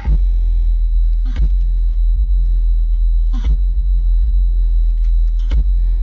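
Subwoofer in a Ford Escort playing loud, deep bass, with a short sharp hit about every two seconds.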